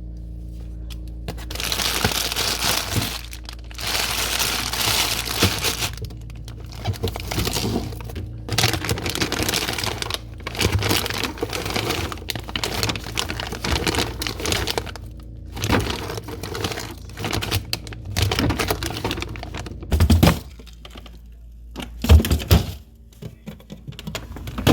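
Plastic packaging crinkling and rustling in repeated bursts as it is handled, with a couple of sharp knocks near the end, over quiet background music.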